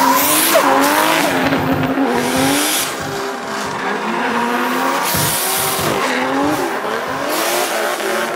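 Drift car's engine revving hard, its pitch rising and falling again and again as the throttle is worked, while the rear tyres squeal in a sustained slide.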